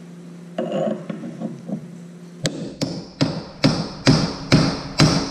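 Hammer striking a steel punch held against the threaded lock nut inside a Honda Foreman 400 front differential case clamped in a vise, trying to drive the nut around to unscrew it. After a few light handling knocks, the sharp metal blows start about halfway through and come steadily at about two a second, around seven in all.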